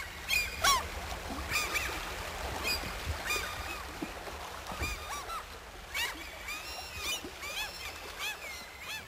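Flock of waterbirds calling, many short repeated calls overlapping one another, over a steady low rumble.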